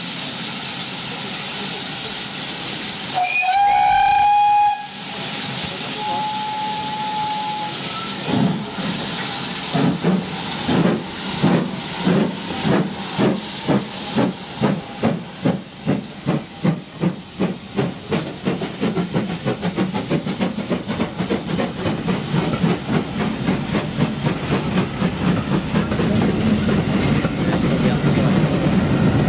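Double-headed steam locomotives, GWR 0-6-2 tank No. 5643 and a second engine, hissing steam, then a loud whistle about three seconds in, answered by a second fainter whistle. The train then starts away: exhaust beats slow at first, quickening steadily to several a second.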